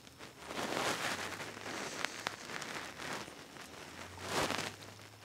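Hand-handling noises: a few short bursts of rustling and scraping with light clicks as parts are worked on the grinder's base, the loudest a little past four seconds in.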